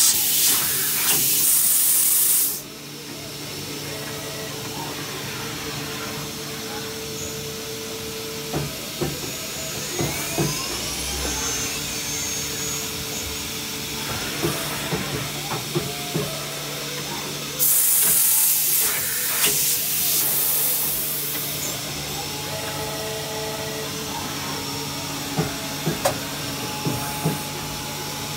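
Mazak INTEGREX 200-IV multitasking lathe running: a steady hum of motors with several fixed tones, scattered clicks and clunks, and a brief rising-then-falling whine near the middle. Two loud bursts of hissing break in, one at the start lasting about two and a half seconds and one about two-thirds of the way through lasting about three seconds.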